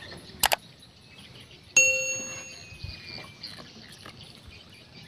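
A small metal bell struck once, a clear ding that fades over about a second. A pair of sharp clicks comes just before it.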